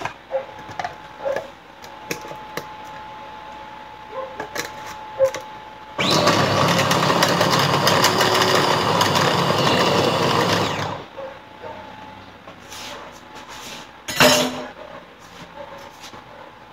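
Small electric food chopper running for about five seconds, chopping and whipping butter with garlic, preceded by scattered clicks and knocks from handling its lid, with a short loud burst about three seconds after it stops.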